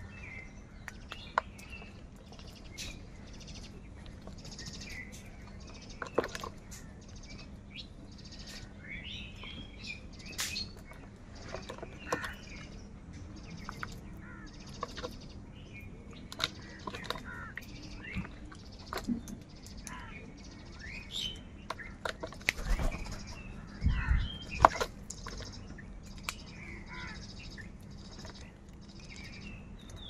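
A flock of house crows feeding together, giving short scattered calls and caws over sharp clicks and taps. A few low thumps come about three quarters of the way through.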